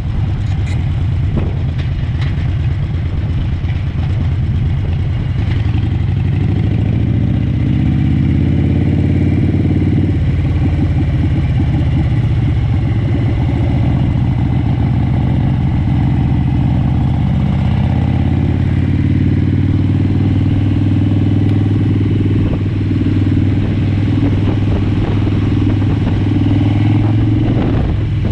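Harley-Davidson Sportster's V-twin engine running on the move at town speed, its note climbing as it accelerates, then dropping sharply about ten seconds in and running fairly steady after that.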